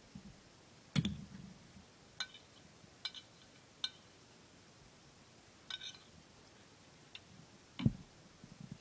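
Cutlery clinking against a plate, several separate short ringing clinks, with a dull knock about a second in and another near the end.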